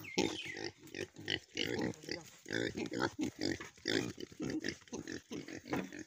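Pigs grunting eagerly in a rapid, irregular run of short grunts as feed is carried to them.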